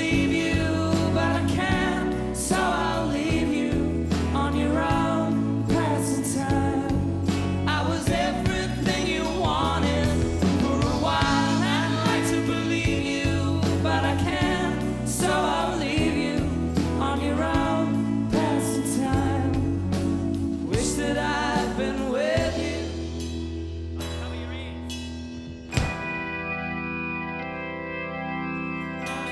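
Live indie rock band playing with singing over bass, drums and guitars; about 22 seconds in the full band falls away, leaving held guitar and keyboard chords, with one sharp knock shortly after.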